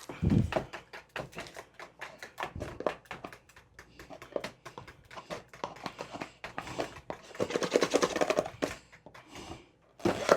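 Kitchen clatter from handling utensils and containers while baking: a run of quick taps, clicks and knocks, busiest about seven to eight seconds in.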